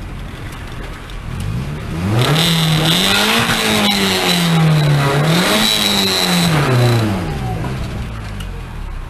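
Car engine heard from inside the cabin, revving up and down twice as the car drives off and turns, then settling back down. A loud hiss with a steady high whine rides over the revs during the loudest stretch.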